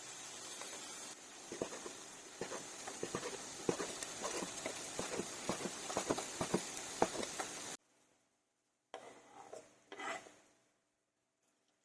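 A utensil stirring and tossing food against cookware: quick light clicks and knocks, several a second, over a steady hiss. It cuts off abruptly about eight seconds in, followed by a couple of brief soft sounds.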